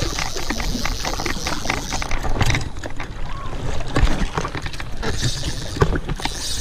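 Water sloshing around a wading angler, mixed with rustling and frequent knocks of hands and clothing against a body-worn camera while he fights a hooked coho salmon on a bent rod.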